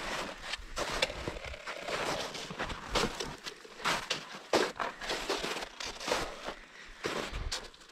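Boots crunching through snow, step after step, with trekking poles planting in the snow; an irregular series of crunches about two a second.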